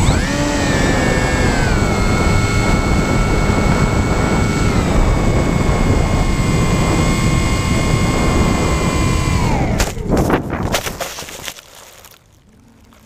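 Onboard sound of a Sky Eye FPV plane's electric motor and propeller whining steadily under heavy wind rush, stepping down in pitch about five seconds in, then cutting off near ten seconds. A few thumps and scrapes follow as the plane touches down in the grass.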